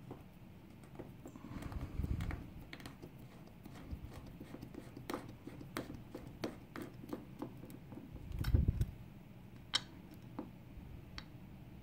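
Sharp metallic clicks and taps from a DOM IX dimple lock cylinder and its small parts being handled and worked apart, with two louder fumbling bursts, one about two seconds in and one past the eight-second mark.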